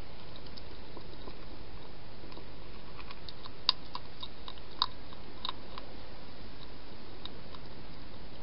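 A hedgehog chewing food: a scatter of crisp crunching clicks, clustered in the middle and with two louder ones, over a steady background hiss.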